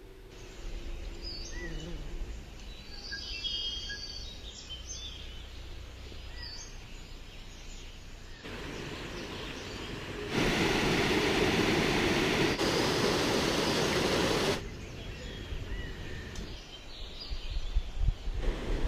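Outdoor ambience with scattered short bird chirps, broken by edit cuts. From about ten to fourteen seconds in, a louder steady rushing noise takes over, then stops abruptly.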